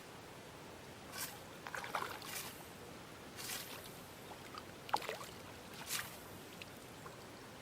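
Small splashes and water trickling and dripping at the river's edge, a handful of brief separate splashes, as a small chub is brought to the landing net.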